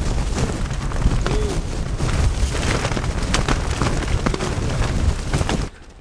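Gale-force wind buffeting the microphone, a heavy low rumble with rapid flapping slaps from the collapsing tent's fabric. It cuts off suddenly near the end.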